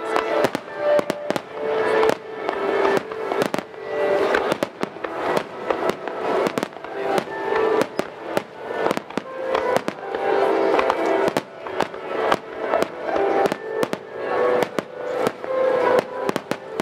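A fireworks display going off in a dense barrage: many sharp bangs and crackles in quick succession, with music playing underneath.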